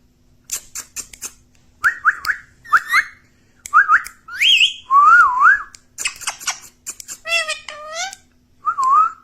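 Ringneck parrot whistling and chattering: a string of short clear whistles, some rising sharply and some wavering up and down, mixed with quick harsh chirps.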